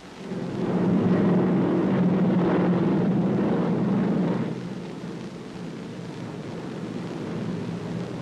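Steady drone of the piston engines of twin-engine bombers flying overhead in formation. It swells up about half a second in, stays loud for about four seconds, then drops to a quieter steady drone.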